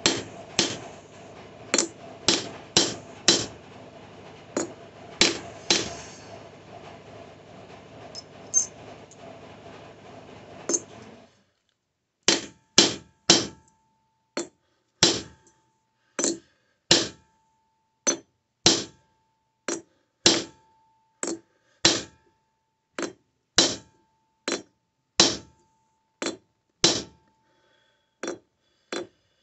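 Hand hammer striking a sterling silver square on an anvil, sharp blows about one or two a second, flattening a crease in the annealed metal. A steady background noise cuts off suddenly about eleven seconds in, after which the blows ring out against silence.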